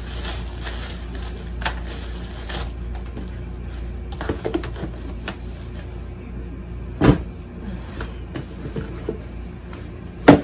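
Tissue paper rustling and a cardboard shoebox being handled, with scattered light clicks, a loud knock about seven seconds in and a sharp knock near the end.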